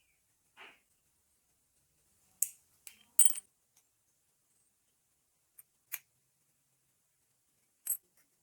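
Small metal parts of an antique padlock clinking and tapping against each other and the work surface: a soft scrape near the start, then about six sharp clinks spread out. The loudest clinks, about three seconds in, have a brief high metallic ring.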